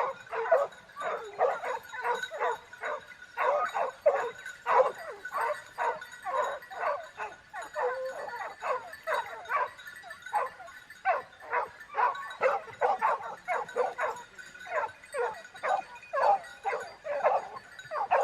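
A dog yipping and barking in quick, short, repeated calls, several a second, with hardly a pause.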